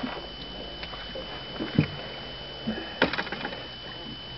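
Light handling noise aboard a small fishing boat: a dull thump a little under two seconds in and a sharp knock about three seconds in, over a steady hiss.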